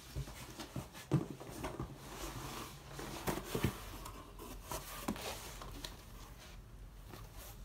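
Packaging being handled and opened: irregular rustling, scraping and light knocks of cardboard and wrapping as a clutch kit is unpacked.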